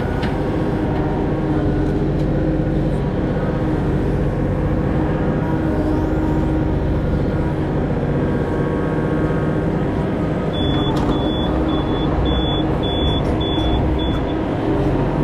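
Mini excavator's diesel engine running steadily while the machine works.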